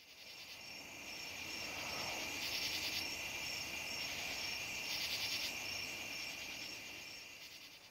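Night insect chorus: crickets chirping in a steady high-pitched trill, with a shriller pulsing call repeating about three times a second. It fades in at the start and eases off near the end.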